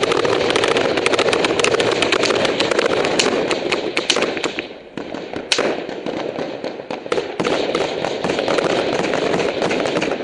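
Heavy gunfire: many rapid rifle and machine-gun shots overlapping almost without pause, with a brief lull about four and a half seconds in, broken by one sharp, louder shot.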